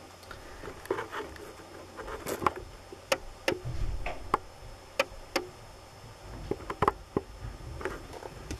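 Handling noise: about a dozen irregular sharp clicks and taps, with a little low rumble, from fingers working the camera to get it to focus.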